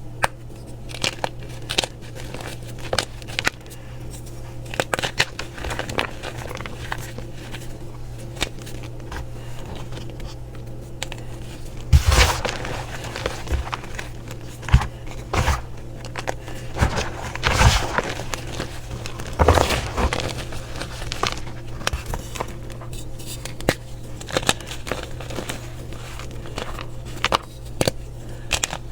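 Crunchy slime being worked by hand, giving a steady run of small crackles and clicks, with a few louder crunchy clusters near the middle.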